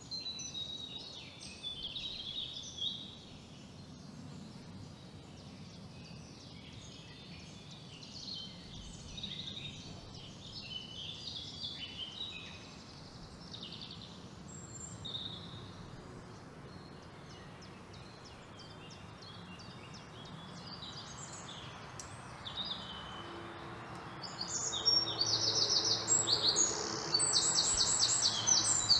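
Birds chirping and singing over a steady background hiss, the calls growing louder near the end with a fast, rapidly repeated trill.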